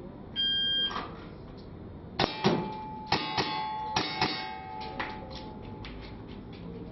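A shot timer's start beep, then airsoft revolver shots in quick succession, with the metal targets ringing with a clang after the hits. Fainter clicks follow near the end.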